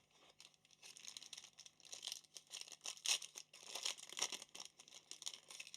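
Trading cards and their pack wrapping being handled: soft crinkling and rustling with scattered light clicks and slides.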